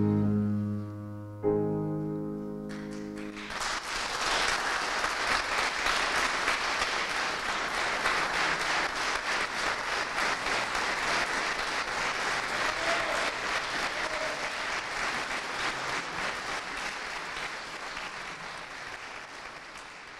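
A chamber ensemble with cello and piano ends on two long held chords, the second beginning about a second and a half in. About three seconds in, an audience breaks into steady applause, which fades out near the end.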